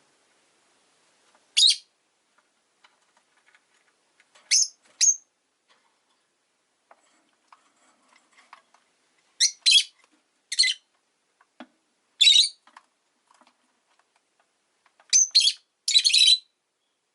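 Rosy-faced lovebirds giving short, high-pitched chirps, singly and in quick pairs a few seconds apart, with a tighter cluster of chirps near the end.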